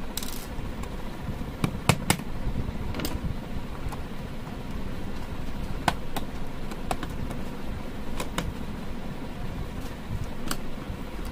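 Scattered sharp clicks and taps of a screwdriver and hands on a plastic electrical socket plate as its fixing screws are driven in, the loudest about two seconds in, over a steady low background hum.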